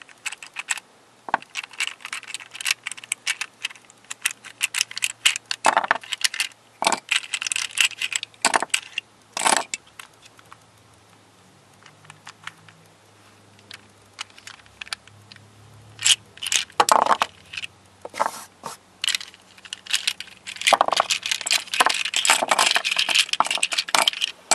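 Plastic pieces of a Square-2 twisty puzzle clicking and clattering as the puzzle is taken apart by hand and the pieces are prised out and handled. The clicks come thick at first, thin out to a few in the middle, then come thick again near the end.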